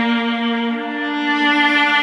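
Slow background music made of long held notes, with the lower note changing about a second in.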